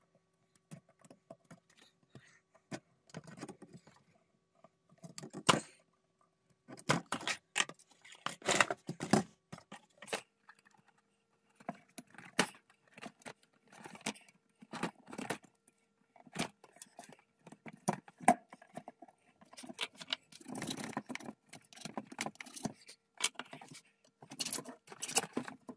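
Irregular metallic clicks and scrapes of needle-nose pliers working in the corner of an aluminum screen-window frame, tugging at the worn fuzzy weather strip to pull it out. Near the end, a few rasping hacksaw strokes on the aluminum frame.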